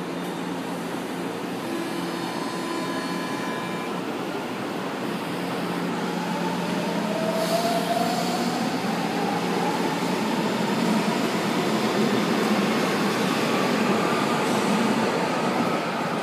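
São Paulo Metro train pulling out of the station: a steady low hum at first, then from about six seconds in the traction motors give a whine that climbs steadily in pitch as the train accelerates, over the rumble of the wheels on the rails.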